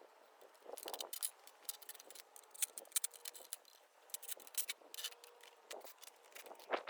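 Light metallic clicks, ticks and scrapes at an uneven pace, like hand tools and small metal parts being handled during a moped teardown.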